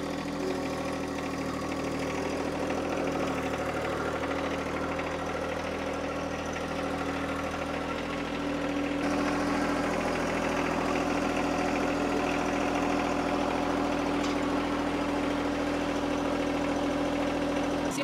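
John Deere compact tractor's three-cylinder diesel engine running steadily at an even speed while it carries a log on its loader forks, a little louder about halfway through.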